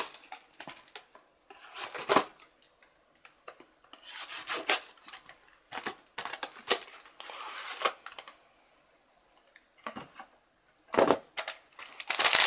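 Cardboard model-kit box being handled and opened: the box and its lid sliding and rubbing against each other, with scattered taps and knocks as it is turned and set down.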